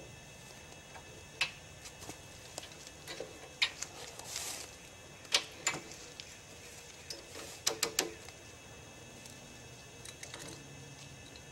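Scattered sharp metallic clicks and knocks as the homemade sawmill's steel frame and chainsaw mount are handled and adjusted, coming in small clusters of two or three, with a short rustle in the middle. The chainsaw is not running.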